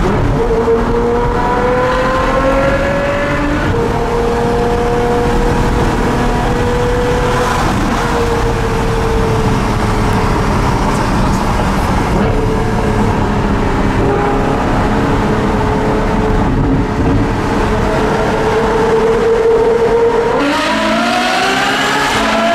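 Ferrari F12berlinetta's V12 with a Novitec aftermarket exhaust, heard from inside the cabin. The engine pulls up through the revs, drops in pitch with an upshift about four seconds in, then runs at a fairly steady cruise. Near the end, in a tunnel, it revs up hard again, rising in pitch and getting brighter.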